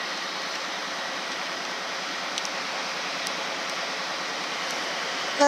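Steady rushing noise from an approaching InterCity 125 High Speed Train led by a Class 43 power car. A short horn note begins right at the end.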